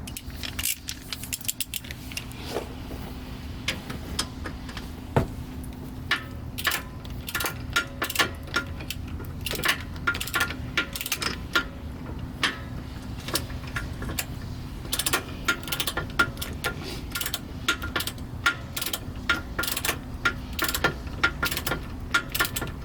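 Metallic clicking in irregular runs of sharp clicks, typical of a hand ratchet turning a bolt into a car's brake caliper.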